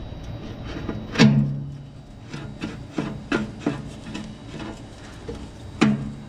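A run of sharp metal knocks and clanks, each with a brief low ring, as old burner parts are worked loose inside a Weber Genesis gas grill's firebox. The loudest comes about a second in, then quicker taps about three a second, and another loud clank near the end.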